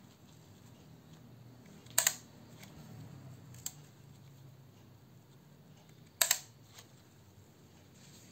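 Leaf shutter of a Ricohflex twin-lens reflex camera (Citizen MXV) being fired: a sharp double click about two seconds in and another about four seconds later, with a faint click between them.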